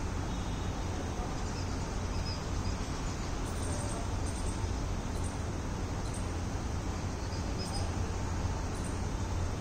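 Steady outdoor background noise with a low rumble, and faint, short high chirps a few times from about three and a half seconds in.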